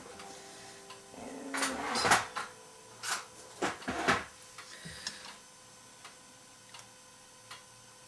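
A few light clicks and knocks of small tools being handled on a tabletop, bunched in the first half, then quieter handling.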